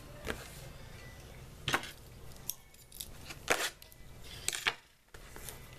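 Several short, sharp taps and clicks, a second or so apart, from hands handling trading cards and a card box on a tabletop.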